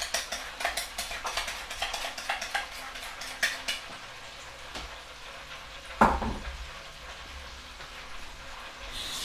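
Metal spoon stirring and scraping thick katsu sauce in a bowl, quick clinks several a second for the first three and a half seconds, then stopping. Under it and after it, oil sizzling steadily in a deep fryer, with one sharp knock about six seconds in.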